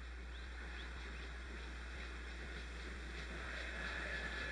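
Football stadium crowd noise: the steady din of a large crowd, swelling slightly toward the end, with a thin whistle tone near the end over a low steady hum.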